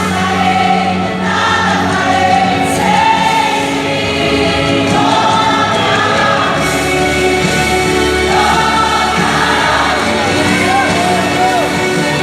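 A Christian worship song sung by a vocal group in harmony over instrumental backing, with held, wavering sung notes near the end.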